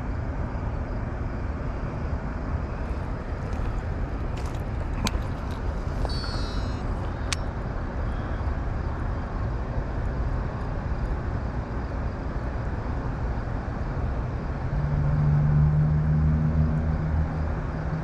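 Steady rushing outdoor noise, with a few light clicks between about four and seven seconds in, as a small jig is handled and tied onto the line. A low steady hum swells in near the end.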